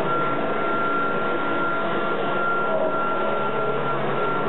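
Kirby Tradition upright vacuum cleaner running on carpet: a steady high motor whine over a rush of air.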